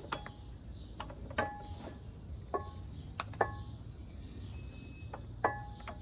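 Five sharp metallic clinks, each ringing briefly, as the steel front axle of a Honda GL1500 Goldwing is worked through the wheel hub and its spacers.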